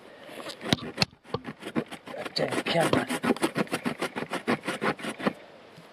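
Aitor Oso Blanco knife's saw-back spine sawing through a branch of firm wood. A few separate strokes at first, then quick, even back-and-forth strokes, several a second, which stop shortly before the end.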